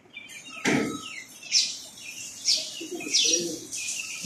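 Small birds chirping repeatedly: sharp, high, falling chirps about once a second. There is a dull thump about a second in.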